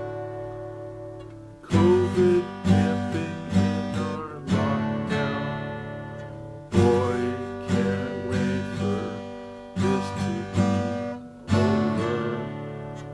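Solo acoustic guitar playing an instrumental piece: chords struck and left to ring out, with smaller notes played between them.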